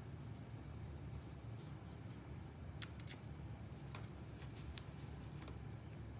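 Faint handling noise: rubbing and a few scattered soft clicks as hands wipe sticky honey off a shirt, over a low steady hum.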